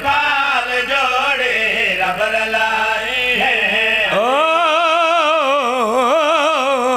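A man's voice singing a slow, drawn-out, ornamented line of a devotional Punjabi qasida through a public-address system, with no words clearly sounded. From about four seconds in he holds one long note with a strong wavering vibrato.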